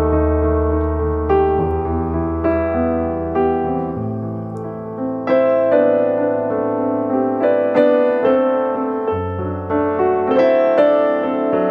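Background piano music: gentle chords changing every second or so over held low bass notes.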